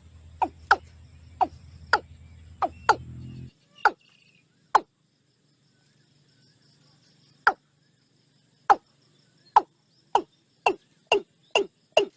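An animal's repeated short calls, each a quick downward glide. They come at irregular intervals, with a gap in the middle, then faster, about two a second, near the end. A low steady hum under the first few calls cuts off suddenly about three and a half seconds in.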